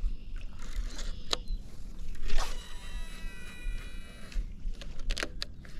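Baitcasting reel during a cast: a sharp click as the spool is freed, then the spinning spool whines for about two seconds, its tones gliding as it slows. Clicks near the end as the reel is re-engaged.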